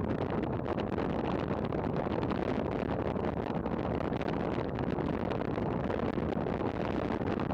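Steady rushing wind on a bicycle-mounted camera's microphone, mixed with tyre noise on asphalt, while riding at race speed.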